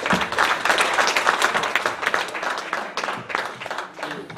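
Audience applauding, the clapping thinning out and dying down near the end.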